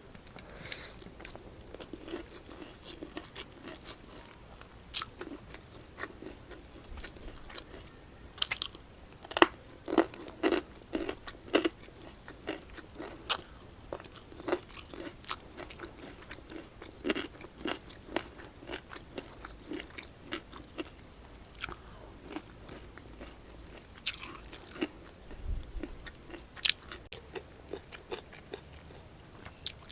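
Close-miked eating of fish curry with rice, papad and salad: irregular bites, crunching and wet chewing, with sharp clicks here and there.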